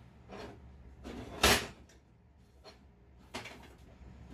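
Steel jaws of a homemade gas-spring vise knocking against a flat metal workpiece as it is set between them and clamped, a few hard clacks with the loudest about a second and a half in.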